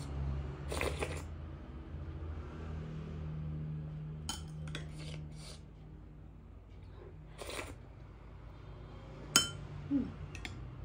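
Plastic spoon clicking and clinking against glass bowls and a plate as food is scooped and eaten, with a quick run of four clicks about halfway and the sharpest clink near the end.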